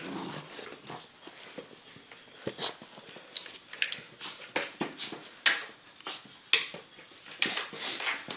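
A puppy moving about with its head stuck in a football helmet: the helmet and its face mask knock and scrape in a string of irregular sharp clicks and thumps, the loudest about five and a half and six and a half seconds in.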